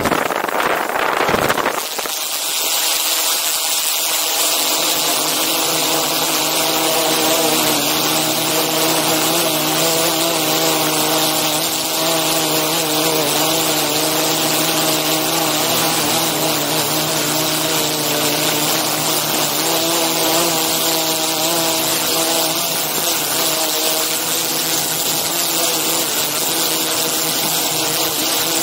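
DJI Inspire 2 quadcopter's motors and propellers, loud and close to the microphone of the 360 camera it carries: a steady whine of several tones over a strong hiss. A harsher hiss fills the first two seconds before the steady whine sets in.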